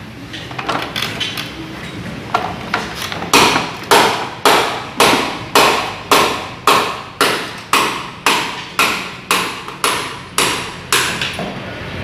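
Hammering in a steady rhythm: a few light taps, then about fifteen hard blows just under two a second, each ringing briefly.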